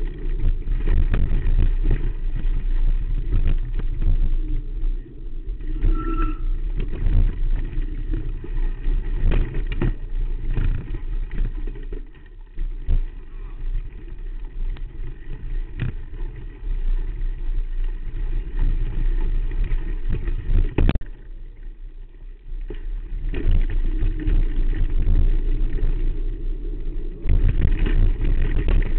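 Mountain bike riding over a rocky dirt trail, heard through a camera mounted on the bike: a continuous low rumble and rattle of the knobby tyres and frame over the rough ground, with sharp knocks from bumps and rocks. The noise eases twice for a moment, around a third and two thirds of the way through.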